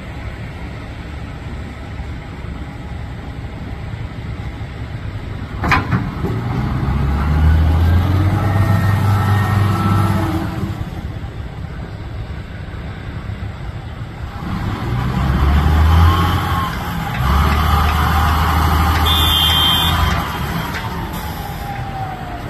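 Motor vehicles passing at the port: two spells of low engine rumble, each rising and fading over a few seconds. There is a sharp click just before the first spell and a short high beeping near the end of the second.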